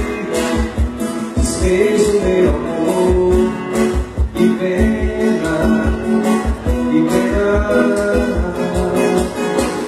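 Live band music with a steady beat, guitar and held melodic lines, with some singing.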